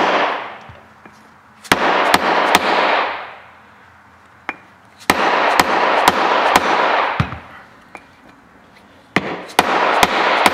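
A hammer taps a block of wood held over a needle bearing, driving the cold bearing into a heated scooter CVT rear driven pulley. The taps come in three quick groups of about four, two to three a second, with one lone tap between the first two groups. A rushing hiss rises under each group and dies away after it.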